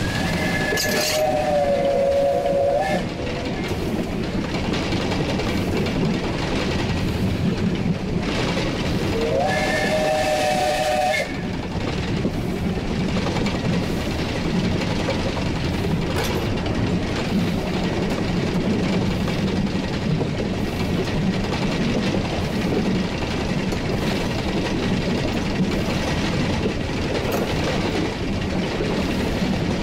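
Steam whistle of the 1943 Davenport-built US Army locomotive 2533 (SGB 4689) sounding two blasts about eight seconds apart, each two to three seconds long, heard from the cab. Under them runs the train's steady running noise with wheel clicks over the rail joints.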